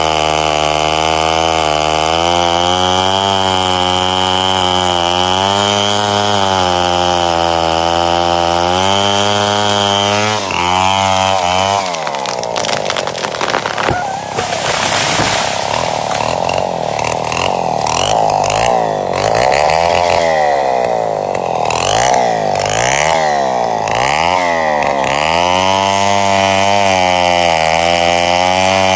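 Two-stroke chainsaw engine running at a steady, slightly wavering pitch. About a third of the way in it goes under load, with a rasping noise and the engine note dipping and swinging repeatedly, as when cutting into a tree. Near the end it settles back to a steady run.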